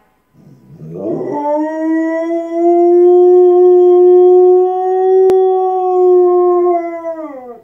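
A Rottweiler howling: a low rising grumble that turns into one long, steady howl, dropping in pitch at the end.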